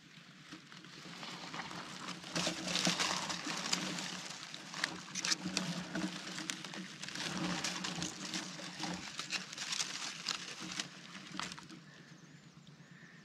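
Dry grass, twigs and loose soil rustling and crackling under hands, with many small sharp clicks, as a small steel spring rat trap is set and bedded in at a burrow mouth. It quietens near the end.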